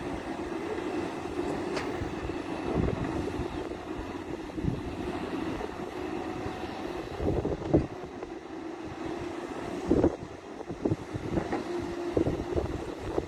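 Diesel engine of heavy digging machinery running steadily, with irregular low clunks and thumps of the work, the loudest about eight and ten seconds in.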